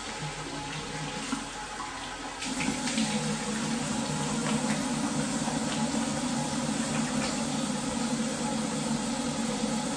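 Tap water running into a bathroom sink, coming on stronger about two and a half seconds in and then running steadily, with a few faint splashes as a face is rinsed after cleansing.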